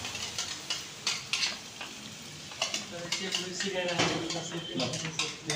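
Carrot halwa being stirred and scraped with a wooden spatula in a pan over a gas flame, with a low frying sizzle and the spatula clicking and knocking against the pan.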